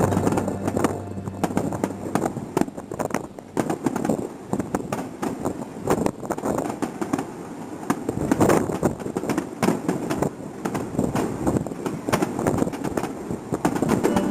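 Aerial fireworks bursting and crackling, many sharp pops and bangs in quick irregular succession, with a louder cluster of bursts a little past the middle.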